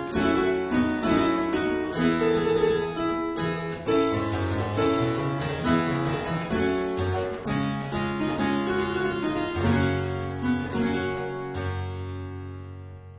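Virginal playing a Renaissance dance: a steady flow of plucked melody notes over a moving bass line, ending on a final chord about eleven seconds in that rings on and fades away.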